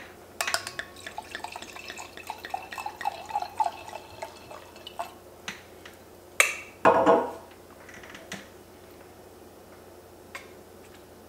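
White wine glugging and splashing from a glass bottle into a stemmed wine glass for a few seconds. About halfway through comes a sharp clink, then a brief louder sound.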